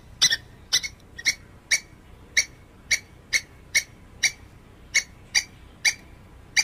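Grey squirrel calling: a string of short, sharp barks, about two a second.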